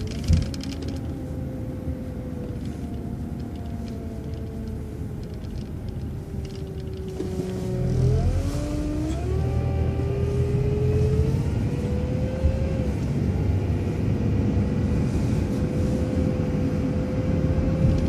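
City transit bus heard from inside, its engine running steadily while stopped, then pulling away about eight seconds in: the rumble gets louder and a drivetrain whine rises in steps as it gathers speed.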